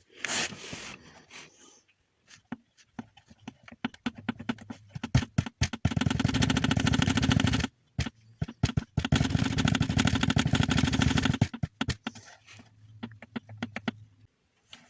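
Car engine running with a rapid, rhythmic knocking from under the hood, in two loud stretches of a few seconds each with a brief break between them.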